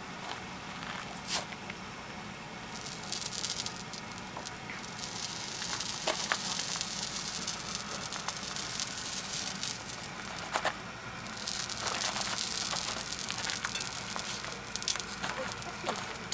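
Horse hair sizzling and crackling as it burns onto a hot unglazed raku pot, leaving the dark carbon veining. It comes as two stretches of hiss, the first about three seconds in and the second a few seconds before the end, with scattered small crackles between.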